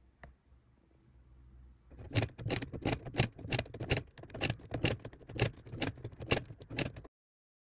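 Odhner Model 8 pinwheel calculator being cranked quickly, a rapid metallic clatter with a loud clack about three times a second amid rattling clicks of the mechanism. The bent top cover is knocking against the internal mechanism as it turns. The clatter starts about two seconds in and cuts off suddenly near the end.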